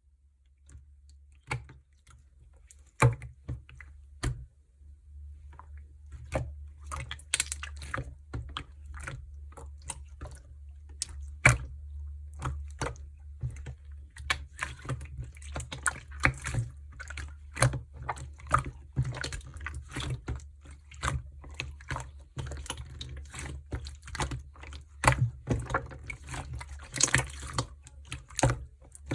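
Slime being pressed, poked and stretched by hand, making many sharp, wet clicks and pops: a few at first, then coming thick and fast from about six seconds in. A steady low hum runs underneath.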